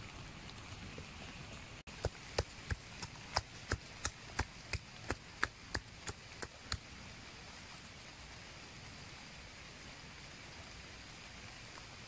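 A pestle pounding chilies in a coconut-shell bowl: a run of about fifteen sharp knocks, roughly three a second, starting about two seconds in and stopping near seven seconds in, over a steady hiss.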